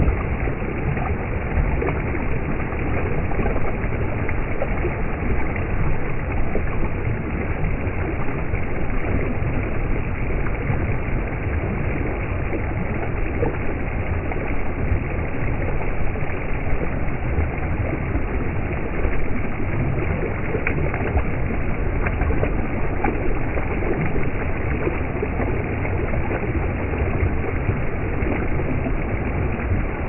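Steady, loud rush of a waterfall, with water spilling over a rock ledge right at the microphone.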